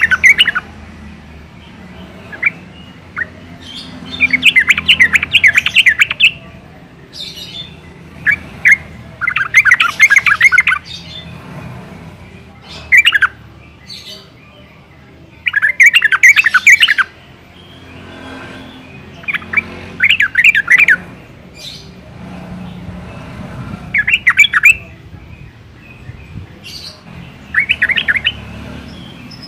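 Yellow-vented bulbul singing in short bursts of rapid, bubbling notes, one burst every three to four seconds, with a low steady hum underneath.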